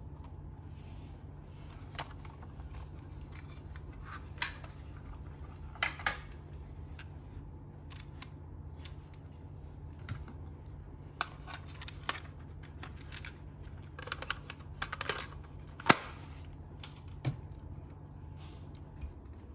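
Irregular sharp plastic clicks and clacks of cassettes and a cassette player being handled, over a steady low hum that stops near the end.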